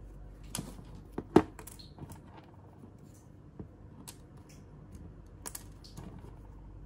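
Small plastic toy figures and accessories clicking and tapping as they are handled on a wooden tabletop: a scatter of light clicks, the loudest about one and a half seconds in.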